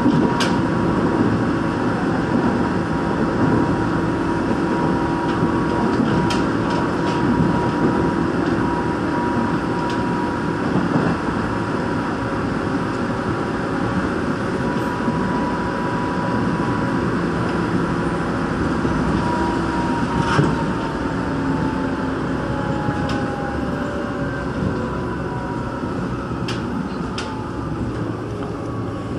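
Onboard running noise of a Seoul Line 1 rheostat-controlled electric train at speed: a steady rumble of wheels on rail with a steady whine from the traction motors and gears that sags a little in pitch in the second half. A few sharp clicks occur, more of them near the end.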